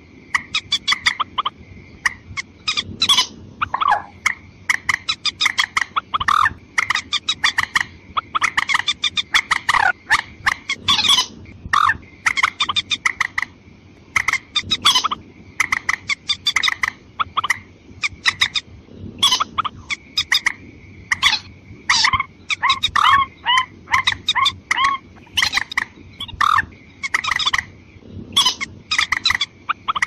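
Watercock calls: quick runs of short, hollow call notes, several a second, repeated in bouts.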